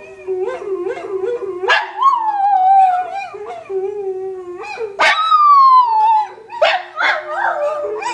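A miniature schnauzer howling along with recorded dogs howling: several long, overlapping howls that slide down in pitch over a lower, steadier howl, breaking into short yips near the end.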